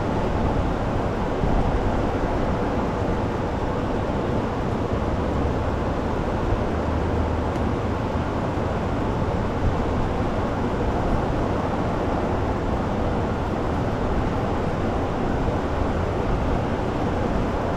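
Steady low rumbling noise, like a large fan or ventilation running, with no distinct knocks or tool strikes.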